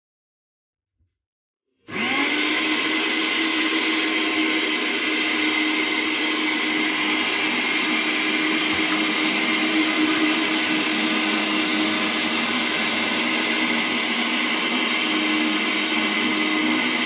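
Electric blender switched on about two seconds in, spinning up quickly to a steady high whine and running without a break as it grinds fresh coriander, mint, green chillies, onion and almonds with a little water into a green paste. It cuts off suddenly at the end.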